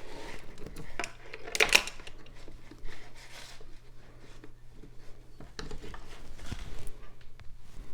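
Kitchen handling sounds of utensils and a dish: scattered light clicks and a brief scraping rustle about a second and a half in, over a faint steady low hum.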